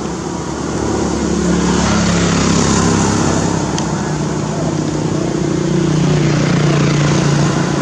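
Motor vehicle engine running with a low hum that drifts slightly in pitch, growing louder about a second in and again near the end.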